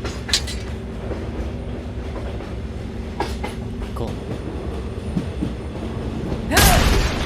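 A steady low rumble with a constant hum, broken by a few sharp clicks and a loud, harsh noisy burst near the end.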